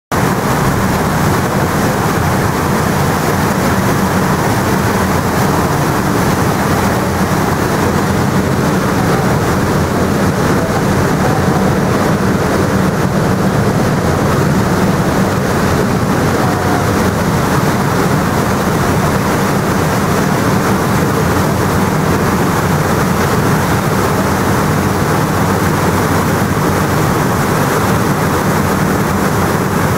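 A boat's engine running with a steady low drone while under way, over the rush of its churning wake.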